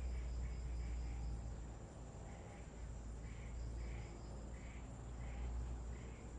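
Tropical forest insects: a steady high-pitched insect drone with a repeated chirping call about three times a second, over a low rumble.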